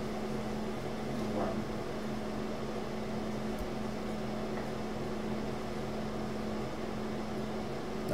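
Steady low hum over an even hiss: room tone.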